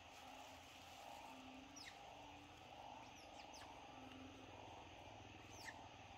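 Faint forest ambience: a steady background drone under a few quick, high bird chirps that fall in pitch, with a small cluster of them about three seconds in.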